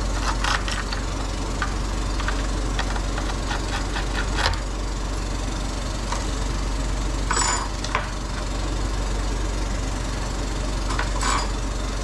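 Steady whirring hum of bench equipment such as a fan, under light clicks and scrapes of small metal tools working on a circuit board, with two short scratchy rasps about seven and a half and eleven seconds in.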